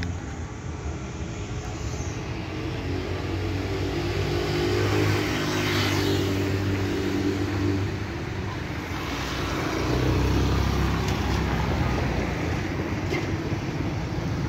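Motor vehicles passing on a city street, their engines rising and falling: one pass swells about five seconds in and another around ten seconds in.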